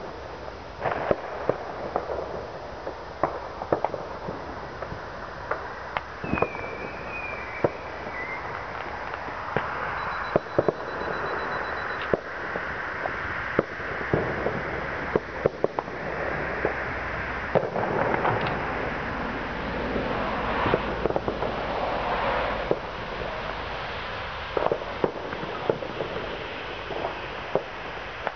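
Many fireworks going off at once: a dense, irregular run of bangs and pops over a continuous crackling din, with a short whistle about six seconds in.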